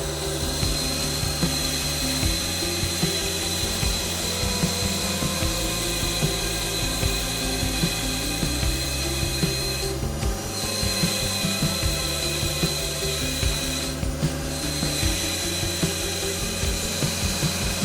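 A woodworking power tool working wood, with a steady high whine that drops out briefly twice, under background music.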